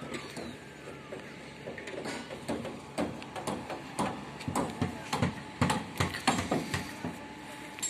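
Construction site work noise: irregular knocks and clanks, several a second, growing busier partway through.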